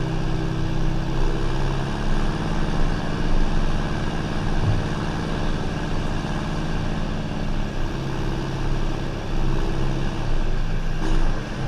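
John Deere 6430 tractor's turbo diesel engine running under way, heard close from the bonnet. The engine note steps up about a second in and drops back about eight seconds in as the revs change, with a short click and a falling tone near the end.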